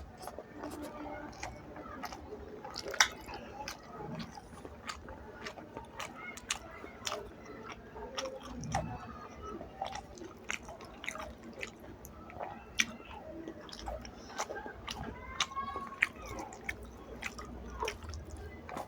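Close-up wet chewing and lip-smacking of a person eating rice and fish curry, with irregular clicks and squelches and one louder click about three seconds in.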